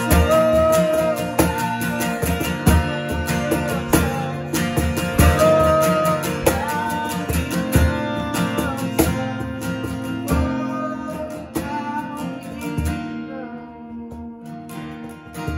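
Acoustic guitar strummed in a steady rhythm with a cajón beating time and singing over it. Near the end the cajón and singing stop and the guitar plays on more softly.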